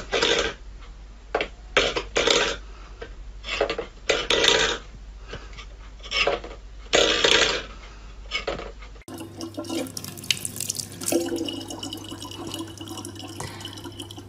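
A steel food bowl clattering and ringing on a wooden floor again and again as a cat knocks at it. About nine seconds in this gives way to a tap running a thin, steady stream of water into a plastic bottle.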